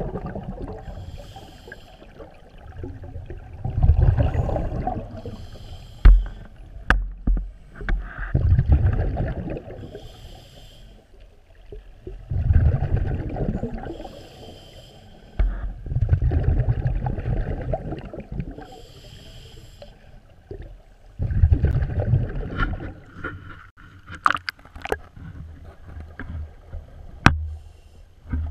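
Scuba breathing through a regulator underwater: a short hiss of inhalation, then a loud rumbling gush of exhaled bubbles, repeating about every four to five seconds. A few sharp clicks come in between.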